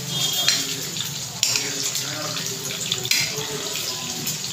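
Pakoras deep-frying in hot oil in a kadhai, a steady loud sizzle, with a few clicks and scrapes of the slotted spoon against the pan as they are turned over.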